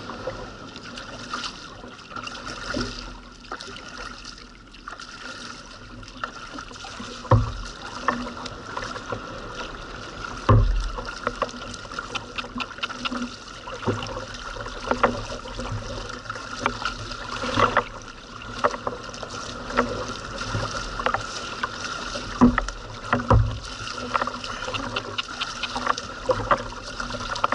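A sit-on-top kayak being paddled: the double-bladed paddle dips and splashes in the water, with water lapping against the hull and a few stronger low thumps.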